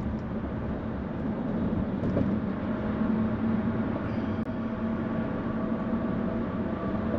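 Steady road and engine noise heard inside a moving car's cabin, with a low, even hum underneath.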